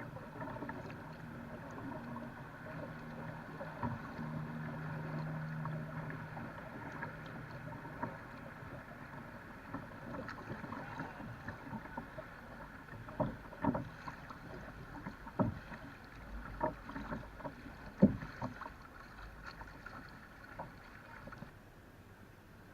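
Jetski engine running as it tows a string of rafts: a steady drone with a low hum that swells about four to six seconds in. Several sharp knocks come in the second half, the loudest about eighteen seconds in.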